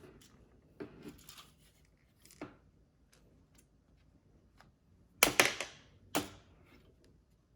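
A few sharp knocks and clicks of a hard plastic power strip casing and its small screws being handled on a work surface. They come in a small cluster about a second in and a louder cluster about five seconds in, with quiet between.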